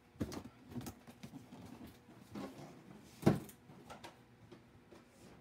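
A large cardboard box being handled and lifted off a counter: scuffs and knocks, with one sharp thump a little over three seconds in.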